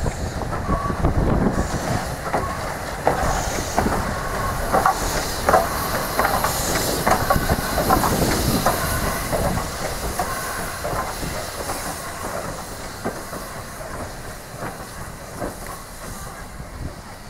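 BR Standard Class 2MT steam locomotive 78019 running slowly past at close range: wheels clicking and clanking over the rails, with steam hissing from the cylinders. The sound fades in the second half as it draws away.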